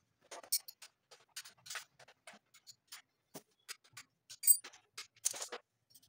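Irregular metallic clicks and clinks of a spanner working the clamp nut of a bicycle saddle as it is tightened, with one sharper ringing clink about four and a half seconds in.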